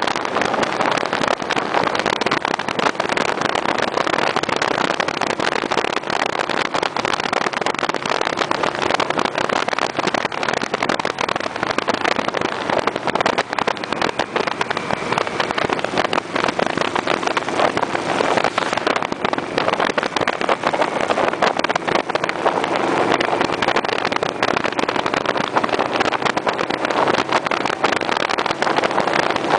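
Motorcycle riding at road speed: its engine running under a steady rush of wind and road noise.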